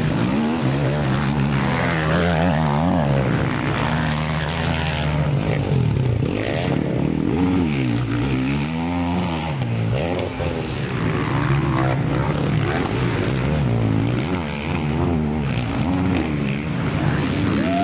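Several dirt-bike engines running at once, revving up and down so that their pitch keeps rising and falling as the riders work the throttle.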